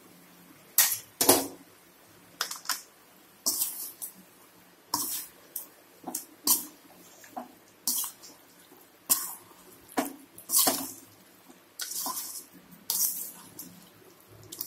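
A perforated steel ladle scraping and clanking against an aluminium kadai while stirring chicken pieces into a thick ground masala paste, in about twenty short strokes, often in pairs, one or two a second.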